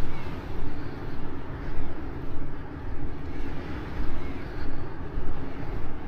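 Walking footsteps in soft beach sand, about two steps a second, over a low wind rumble on the microphone.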